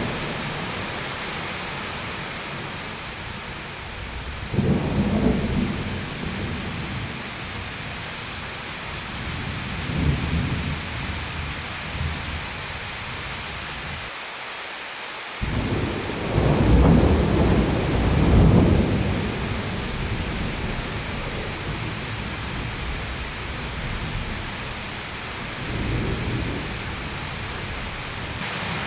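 Thunderstorm: steady heavy rain with rolling thunder, several low rumbles swelling and fading, the longest and loudest rolling for a few seconds past the middle.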